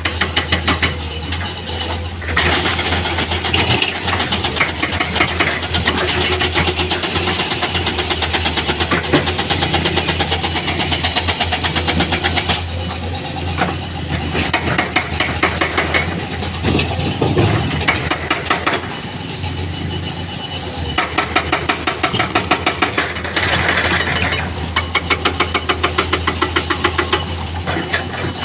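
Heavy diesel engine of construction machinery running with a fast, even clatter, its load changing a few times.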